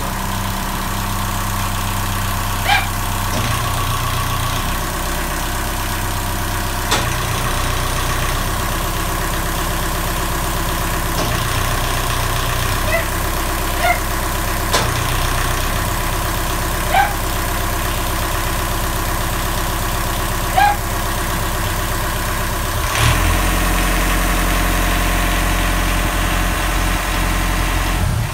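Widebeam canal boat's inboard diesel engine idling, newly started after nine months laid up. A few short sharp blips sound over it, and near the end the engine note turns deeper and heavier.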